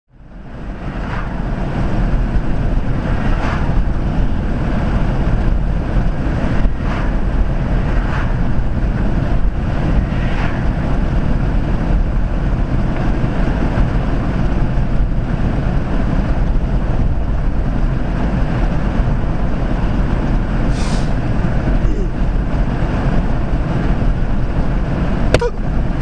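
Steady road and wind noise of a car driving at highway speed, heard from inside the cabin, fading in over the first two seconds. A brief sharp click near the end.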